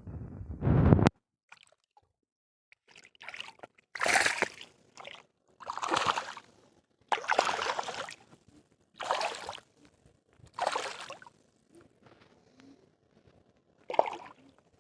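Water splashing in a series of separate splashes, one every second or two, with a last one near the end. A loud low rumble cuts off suddenly about a second in.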